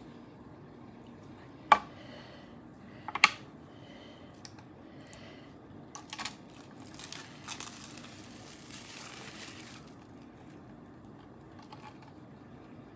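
Plastic cling wrap crinkling as it is peeled off a slab of polymer clay, in the second half. Before that, two sharp clicks about two and three seconds in, and a few lighter ticks.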